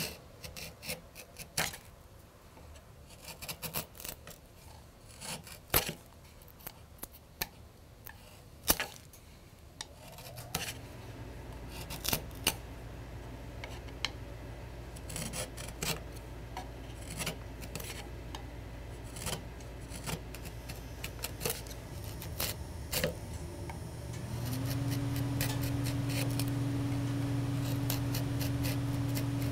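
Hand carving tool paring thin shavings from a walnut spoon handle: a long run of sharp, irregular cutting snicks and scrapes. A steady low machine hum comes in about ten seconds in and gets louder, with a higher tone added, near the end.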